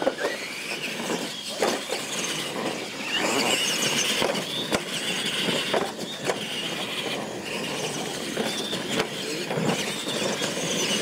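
Radio-controlled monster trucks racing over dirt and ramps: a high whine from their electric motors and gearing, with scattered knocks and clatter as the trucks land and bounce.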